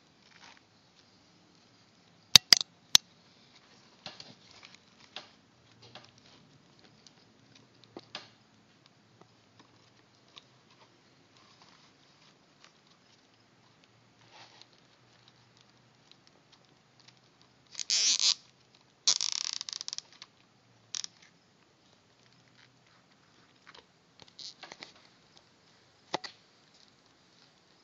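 Small plastic clicks and handling noise from fitting zip ties around an RC truck's shocks, with two short crackly ratcheting sounds about two-thirds of the way through as zip ties are pulled tight.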